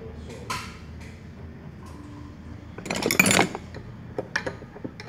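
Metal parts of a starter motor being handled and fitted by hand: a short clatter about three seconds in, then a few light clicks.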